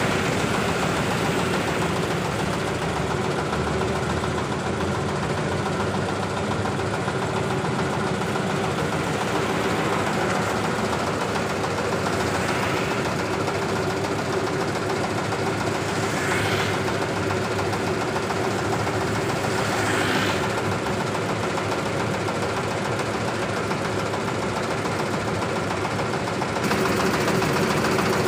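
Engine of a self-propelled power thresher (corn, soybean and rice) running steadily at idle with a knocking beat. A few vehicles pass briefly on the road.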